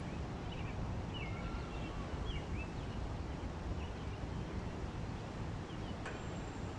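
Short bird chirps, a scattering of quick rising and falling notes, over a steady low rumble of wind on the microphone.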